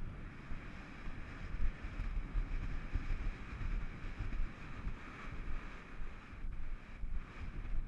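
Wind buffeting the microphone of a rider-mounted camera on a horse moving at speed: a steady, fluttering low rumble with a hiss over it.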